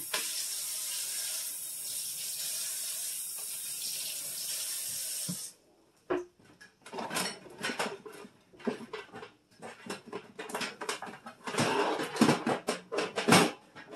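Kitchen tap running steadily into a stainless steel sink, then shut off abruptly about five and a half seconds in. After a short pause comes a run of irregular clicks and knocks.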